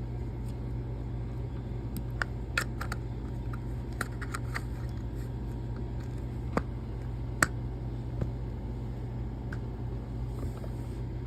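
Scattered small clicks and taps from toy packaging being handled, over a steady low hum; the sharpest click comes about seven seconds in.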